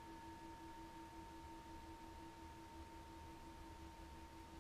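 Metal singing bowl held on the palm, faintly ringing on and slowly fading, its lowest tone pulsing with a steady wobble.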